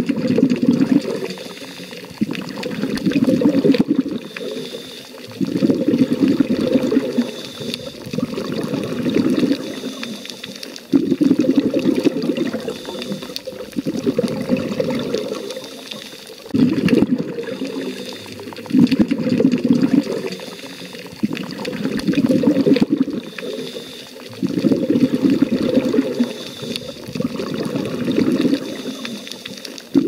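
A scuba diver breathing through a regulator, heard underwater: bursts of exhaled bubbles, each a second or two long, come about every three seconds, with quieter gaps between breaths.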